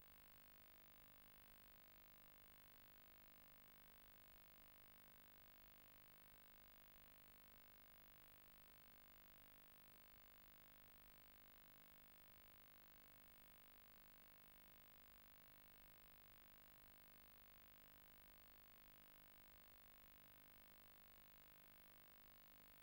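Near silence: a steady, faint hiss with low hum, likely recording noise.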